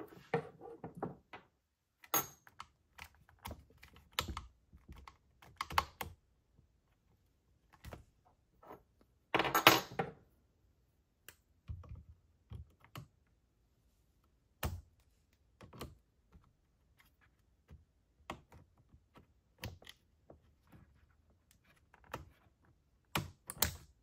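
Scattered small clicks and taps of needle-nose pliers and fingers working a plastic choke linkage free on a STIHL MS210 chainsaw's carburetor, with one louder, longer clatter about ten seconds in.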